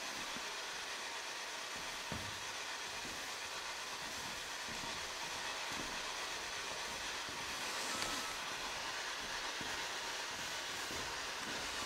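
Steady radio static hissing from a PSB-7 spirit box sweeping through radio stations, with faint clicks now and then.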